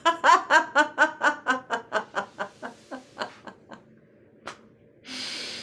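A woman laughing out after a snored inhale: a quick run of 'ha' pulses, about four a second, fading away over some four seconds. Near the end comes a noisy drawn breath.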